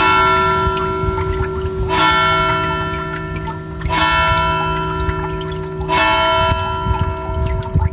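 A deep bell tone struck four times, once every two seconds, each strike ringing on with many overtones over a steady low drone that stops about six seconds in. Trickling water sounds faintly underneath.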